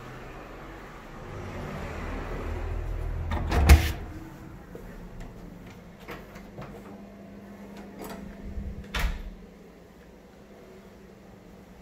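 Wooden apartment front door being unlocked and opened: a loud latch clunk about three and a half seconds in, then lighter clicks and knocks, with a sharper click about nine seconds in.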